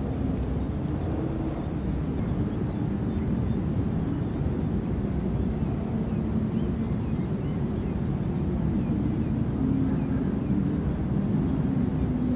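A distant engine droning steadily, a low rumble with a faint wavering hum.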